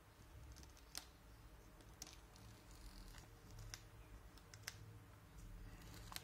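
Faint, scattered clicks of fingers handling the plastic-wrapped record box set, one every second or so, over near silence.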